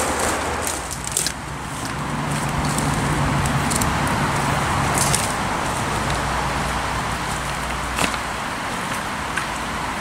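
Footsteps crunching and crackling on dry leaf litter and twigs over a steady rushing background noise. A low hum runs underneath from about two seconds in.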